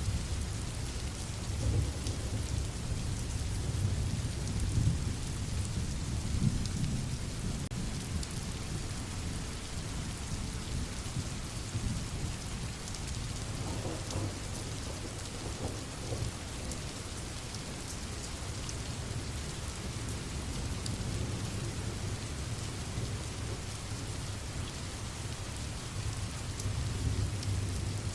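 Steady rain falling, with low rolling thunder rumbling underneath, heaviest in the first several seconds and again near the end.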